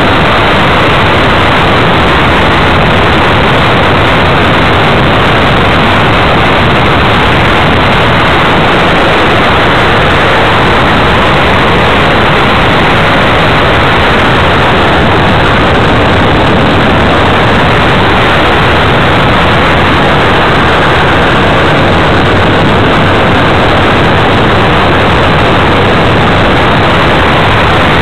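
Steady, loud rushing noise of airflow and the propeller motor, picked up by the onboard camera's microphone of an RC plane in flight.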